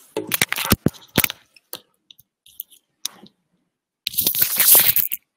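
Handling noise close to a computer microphone: a quick run of sharp clicks and knocks in the first second or so, a few faint ticks, then about a second of rustling noise near the end.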